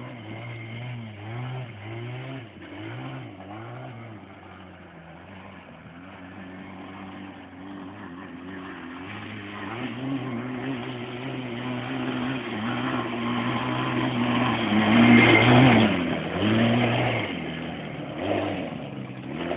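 Quadzilla quad bike engine revving in several short bursts, then held on the throttle and growing louder to a peak about three-quarters of the way through before easing off, as the quad climbs a steep hill.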